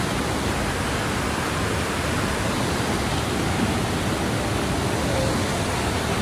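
Waterfall rushing: a steady, loud, unbroken wash of falling water close to the microphone.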